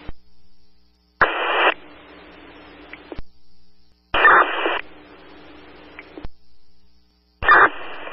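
Fire-department radio channel heard through a scanner: three short bursts of static as a radio keys up, each followed by a second or two of open-channel hiss that cuts off abruptly, with no speech coming through.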